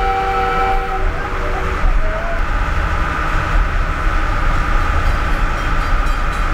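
Rolling rumble of the 1910 McKeen rail motor car heard from inside the cabin, with its multi-note horn sounding as a held chord that stops about one to two seconds in.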